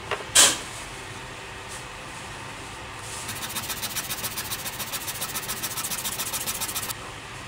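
A sharp click and then a louder clack in the first half-second. From about three seconds in, a cut popsicle-stick piece is rubbed fast back and forth on sandpaper: a quick, even rasping of about eight strokes a second that stops about half a second before the end.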